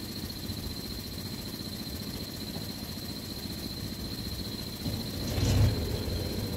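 Tractor diesel engine running steadily, then getting louder with some clattering about five seconds in. A thin steady high-pitched whine runs along with it.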